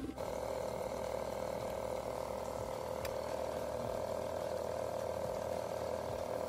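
Suzuki 9.9 hp four-stroke outboard engine (327 cc twin) running with a rough, rapidly pulsing note that jumps higher in pitch just as it begins, then holds steady at the raised speed.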